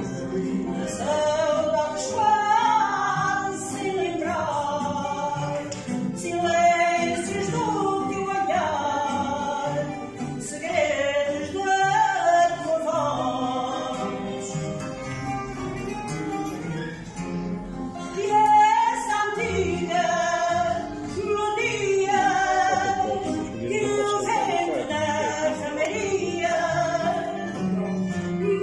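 A woman singing fado in long, sustained, ornamented phrases, accompanied by a Portuguese guitar and classical guitars.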